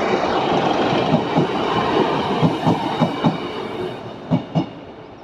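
Train passing on the railway line, its wheels clicking over the rail joints in quick pairs of knocks amid the steady rumble, then fading away near the end.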